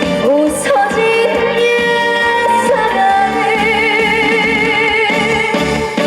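A woman singing an up-tempo trot song live over loud instrumental backing music.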